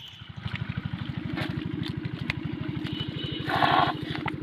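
Small engine, the motor of a homemade pump machine, starting up and then running steadily with an even, rapid firing pulse. About three and a half seconds in, a brief loud rushing burst of noise rises over it.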